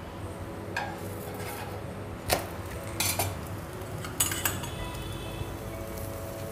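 Metal utensils clinking and scraping against a granite-coated tawa as a stuffed paratha is turned and spread with oil using a steel spoon: a few short sharp clinks over the first four and a half seconds, the loudest a little past two seconds in.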